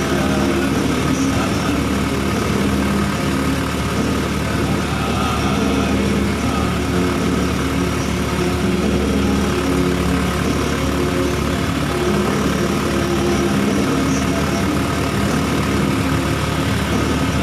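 Honda Supra Fit underbone motorcycle engine running at a fairly steady pitch that shifts slightly now and then, under a constant hiss.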